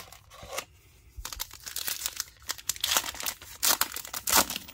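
Foil wrapper of a 2022 Donruss baseball card pack crinkling and tearing as it is handled and ripped open by hand, starting about a second in and growing louder toward the end.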